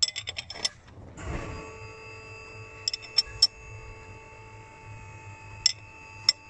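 Ratchet wrench clicking as the crankshaft of a VW 1.4 TSI engine is turned by hand to bring the piston up to top dead centre: a quick run of clicks at the start, then three clicks and later two more. A steady held musical tone sounds under them from about a second in.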